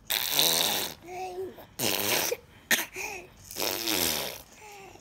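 Baby blowing raspberries through food-smeared lips: three sputters, each under a second long, with short vocal sounds between them.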